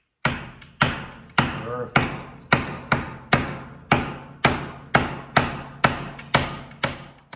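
A hammer driving a nail into a wooden panel with a steady run of about fourteen firm blows, roughly two a second, each ringing briefly. These are the harder hits that follow the gentle starting taps, once the nail has caught in the wood.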